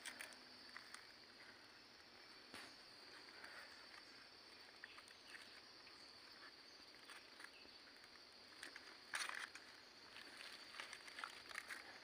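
Faint outdoor ambience: a steady high insect buzz, with soft rustles and light clicks as hands handle thin bamboo sticks among wet leaf litter. The loudest rustle comes about nine seconds in.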